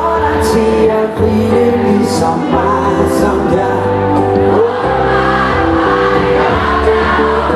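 Live band with electric guitar and bass playing loudly over the PA while a woman sings the lead vocal.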